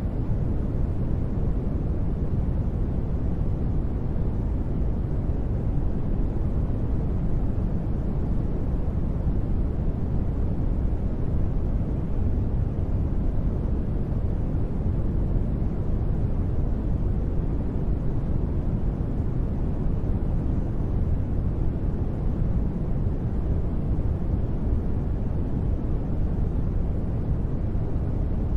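Continuous sleep noise, steady and unchanging, weighted toward the low end so it comes across as a deep, even rumble rather than a bright hiss.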